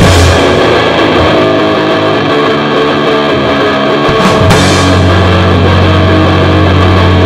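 Loud, distorted punk rock: electric guitar and drum kit playing hard, with a heavy low bass note held from about halfway through.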